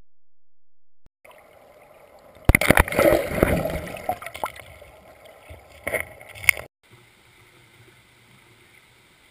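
A small camera plunged into a shallow stream: a loud rush of water and bubbling, fading over a couple of seconds, then two sharp knocks of the housing against the stones. After a sudden drop, only the quieter steady flow of the stream is left.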